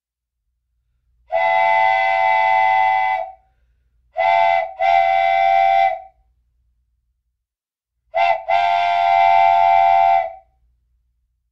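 A whistle sounding a chord of several steady notes in blasts: one long blast, then a short toot followed by a longer blast, then another short toot and a long blast, with silence between them.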